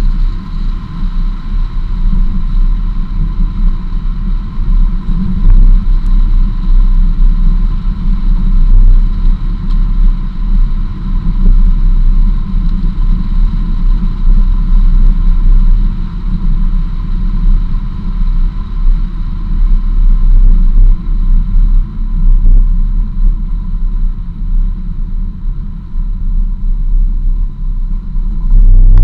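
Jeep driving along a dirt and gravel road, heard from a camera mounted on its hood: a loud, steady low rumble of road, wind and engine noise.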